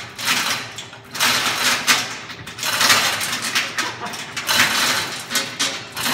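Manual chain hoist being hauled hand over hand, lifting a heavy load: the chain rattles and clinks through the hoist in a pull about once a second.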